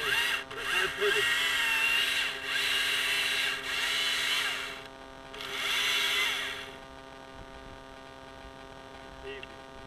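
Husqvarna chainsaw revved in four bursts, about a second or two each, as it cuts pine limbs, then dropping back to a steady idle for the last few seconds.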